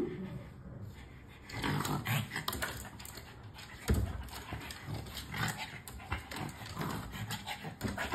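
Pug breathing hard and making small dog noises as it strains up at a kitchen counter. Its claws scratch and tap on the countertop edge, with one sharp knock about four seconds in.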